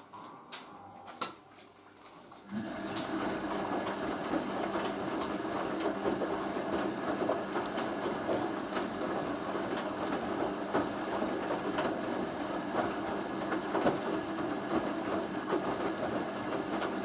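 Hoover A3060 Electronic 1100 washing machine: a few clicks, then about two and a half seconds in it starts up with a steady mechanical hum and rattle. This is the machine moving from the second rinse towards its second intermediate spin.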